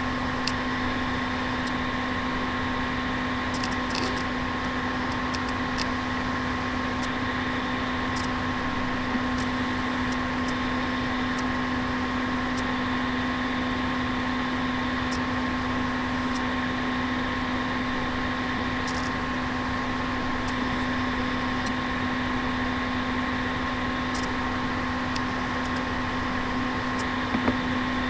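Steady electrical hum and hiss from a laptop's built-in microphone recording, with a few faint clicks, the poor-quality recording noise typical of a laptop webcam setup.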